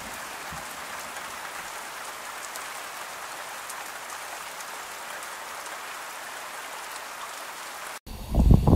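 Steady rain falling through spruce trees: an even hiss with fine drop ticks. About eight seconds in it cuts off abruptly and a much louder low rumble of wind buffeting the microphone takes over.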